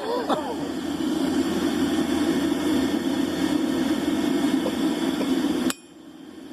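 A forge running with a steady roar, which cuts off suddenly near the end, leaving a faint hiss.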